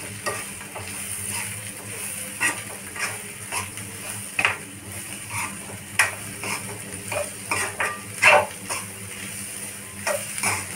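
A steel spoon stirring diced potatoes in a metal wok, scraping and clinking against the pan about twice a second over the steady sizzle of the potatoes frying. One scrape near the end is louder than the rest.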